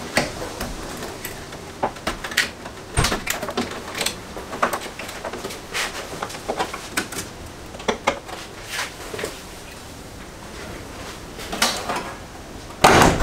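Hand tools and metal fittings clicking and knocking irregularly while a BMW E30 bonnet is unbolted from its hinges and stay, with a heavier knock about three seconds in.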